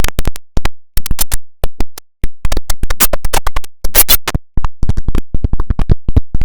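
IBM OS/2 Warp 3 shutdown jingle, effect-processed into a glitchy stutter: many short, abruptly cut-off fragments, several a second, separated by brief silences.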